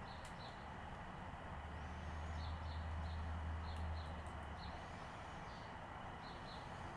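Small birds chirping outdoors: short high chirps in little groups and a few arching calls, over a steady hiss. A low hum swells about a second and a half in and fades again around four and a half seconds in.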